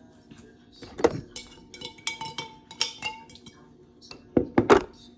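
Hairbrush clinking and knocking against a cup of water as it is dipped: a run of light clinks that ring briefly, then three louder knocks near the end.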